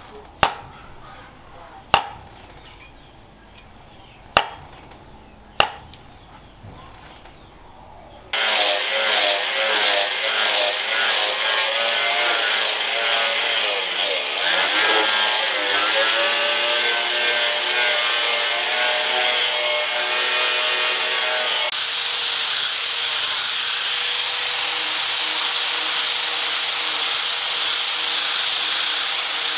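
About five sharp taps of a metal tool on the cleaver's handle end. Then, about eight seconds in, an angle grinder starts grinding the steel cleaver blade with a loud whine that wavers with the pressure. After about 22 seconds it changes to a steadier grinder running a flap sanding disc over the blade, with one held tone.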